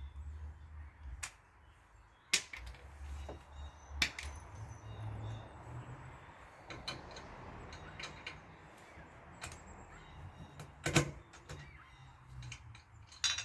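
Scattered metal clicks and clanks as a swollen lug nut stuck in an impact wrench socket is worked free, with a low hum underneath.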